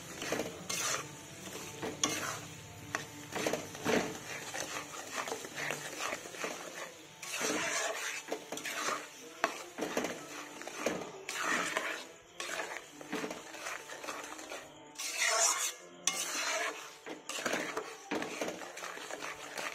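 A metal spoon stirring and scraping around a metal kadai in irregular strokes, through bubbling, lightly sizzling jaggery syrup cooked with spices in mustard oil.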